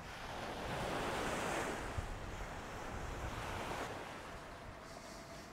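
Ocean surf breaking and washing up a sandy beach, one wash swelling and then easing, with wind buffeting the microphone.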